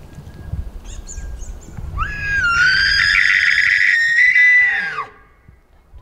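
Bull elk bugling: a call that rises into a high, piercing scream held for about three seconds, then drops sharply in pitch near the end.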